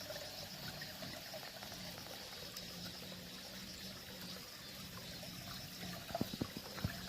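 A stream trickling steadily, with a few short, sharp knocks close together about six seconds in.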